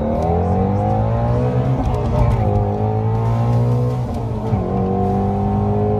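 Ford Mustang Shelby GT350R's 5.2-litre flat-plane-crank V8 accelerating hard. The engine pitch climbs, drops sharply about two seconds in and again about four and a half seconds in, then climbs again: upshifts under full throttle.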